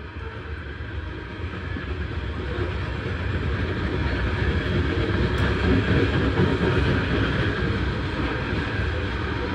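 Norfolk Southern freight train of coal hopper cars rolling past: a steady rumble of steel wheels on the rails that grows louder over the first several seconds, then holds.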